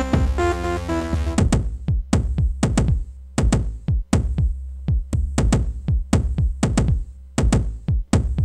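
Electronic industrial rock music: synth chords drop out about a second and a half in, leaving a bare, fast drum-machine beat over a low steady bass.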